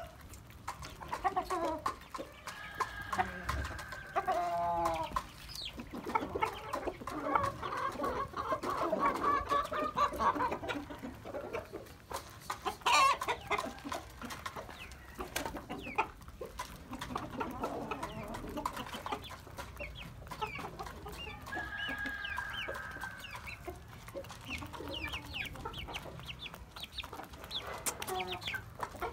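Aseel chickens clucking and calling on and off.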